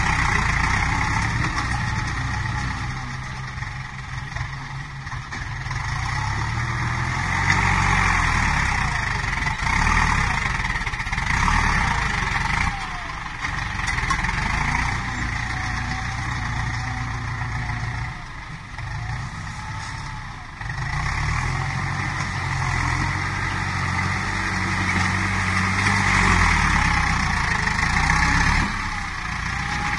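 New Holland TS90 tractor's diesel engine running as its front blade pushes heaps of soil. The engine note rises and falls every few seconds as the load comes and goes, with short dips about 13 and 19 seconds in.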